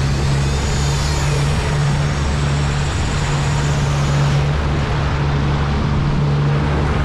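Yamaha 115 outboard motor running at a steady speed, a constant low hum, under the rush of churning wake water and wind.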